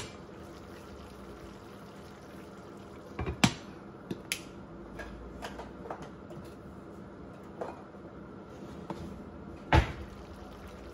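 Chicken liver adobo simmering in a covered frying pan, a steady low bubbling hiss. A few sharp clicks and knocks of the glass lid break it, the loudest near the end as the lid is lifted off the pan.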